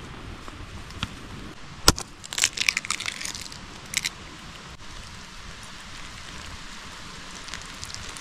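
A sharp knock, then about a second of crunching crackles and two more short crackles a moment later, over a steady background hiss.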